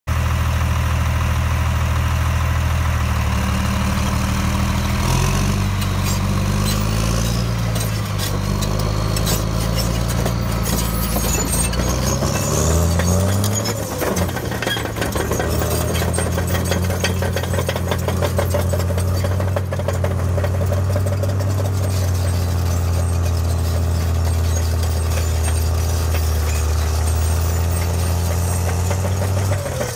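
Caterpillar D7R Series 2 bulldozer's diesel engine working under load as it pushes dirt, its pitch rising and falling several times as the engine revs and lugs. Clanking from the steel tracks runs through the middle stretch.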